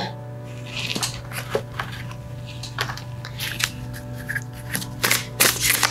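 Tarot cards being handled: a series of light clicks and snaps of card stock, coming more often near the end, over soft background music.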